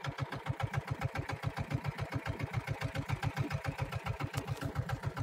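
Small boat's engine idling, a steady chug of about eight beats a second.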